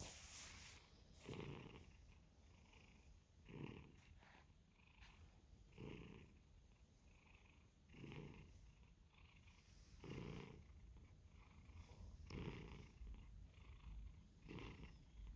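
Domestic cat purring faintly, swelling about every two seconds.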